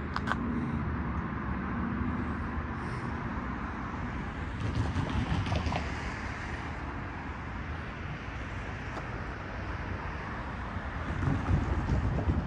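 Street traffic: a steady wash of road noise from passing cars, swelling louder about five seconds in and again near the end.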